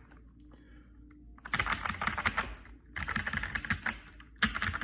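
Mechanical keyboard with tape-, foam- and coin-modded Akko Matcha Green switches being typed in three quick runs of keystrokes along its rows. The runs begin after a short pause of about a second and a half.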